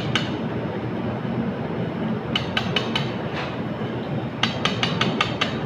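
Hibachi chef's metal spatula clicking in two quick runs of sharp taps during an egg-tossing trick at the griddle, about two and a half and four and a half seconds in, over a steady background hum.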